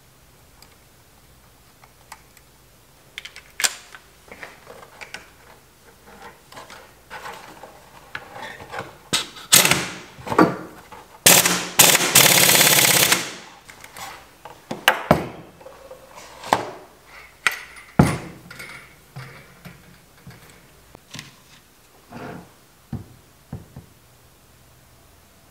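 Cordless impact driver hammering in two short bursts and then one run of about two seconds, driving the bolt at the bottom of a Honda CB750 fork leg. Knocks and clatter of fork parts and tools being handled come before and after it.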